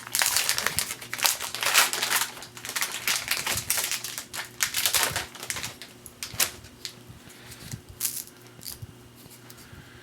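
A trading card pack's foil wrapper crinkling and tearing as it is opened. The dense crackle thins out after about six seconds into scattered ticks and snaps.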